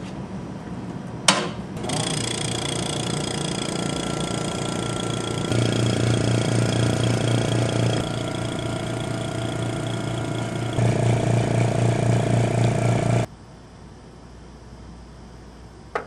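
Lab machinery running with a steady mechanical hum, in spliced stretches that step up and down in level. It starts after a sharp click and stops suddenly near the end. A vacuum pump drawing a plasmid-prep vacuum manifold is among the machines.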